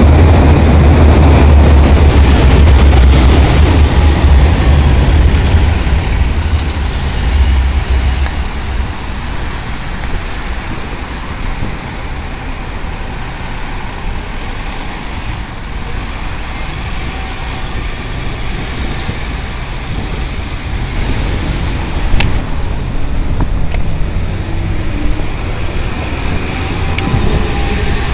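City transit bus pulling away from a stop, its engine a loud low rumble that fades over the first several seconds as it drives off, leaving steady street traffic noise. A single sharp click comes about two-thirds of the way through.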